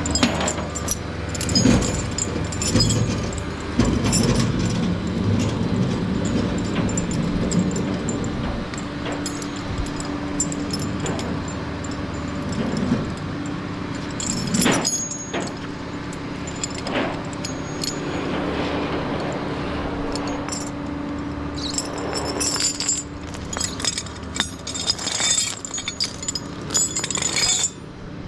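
Metal tow chains and hooks clinking and rattling while being hooked over a car's axle, with a flatbed tow truck's engine running steadily underneath. The rattling comes in clusters, busiest near the start, in the middle and over the last several seconds.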